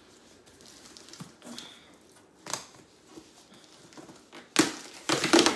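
Pillow packaging being handled: faint rustles and a single click, then a loud burst of plastic crinkling and rustling near the end as the second pillow is pulled out.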